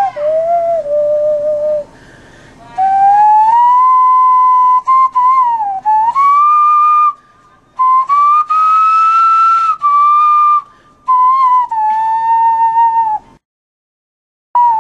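Hand whistling through cupped hands, a high, flute-like tone playing a slow melody of held notes joined by pitch slides, with short breaks between phrases. It stops a little before the end, with one brief note just after.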